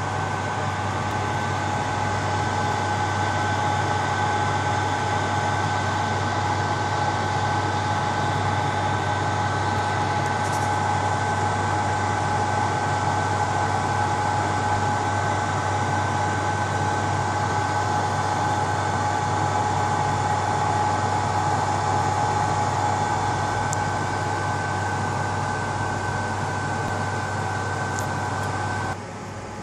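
BGA rework station's hot-air heaters and blowers running steadily while heating the graphics card's GPU, a constant whirring rush with a low hum and a high steady whine. Near the end the whine stops and the noise drops to a lower level.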